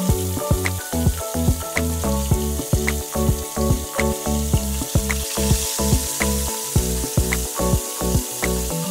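Background music with a steady beat over the sizzle of whole tilapia frying in hot oil in a pot. The sizzle grows louder about halfway through, as a second fish goes into the oil.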